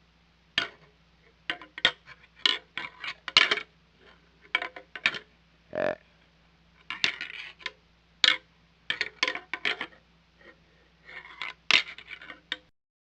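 Whitetail deer antlers clicking and clattering together as bucks spar, in irregular clusters of sharp clacks. A short pitched sound comes about six seconds in, and the clashing stops shortly before the end.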